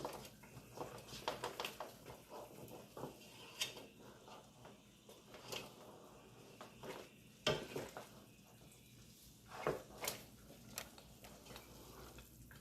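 A spoon stirring in a cooking pot, with scattered light scrapes and knocks against the pot and a few sharper taps.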